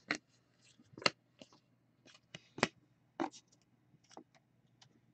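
Trading cards being handled and flipped one after another: a string of light, sharp clicks and snaps, about ten in five seconds, over a faint steady hum.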